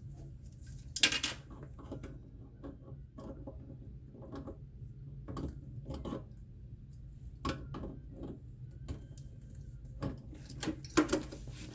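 Irregular clicks and small knocks of a wrench and hose nut being worked onto the bidet's water-supply fitting, with one sharp clack about a second in. This is the nut being forced past the first stiff thread.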